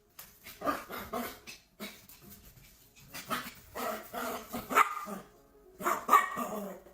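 A dog barking repeatedly in short calls, in three runs separated by brief pauses.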